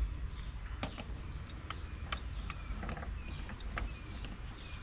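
Metal transmission parts clinking and knocking as they are handled and set down on a workbench: several separate light metallic taps, about a second apart.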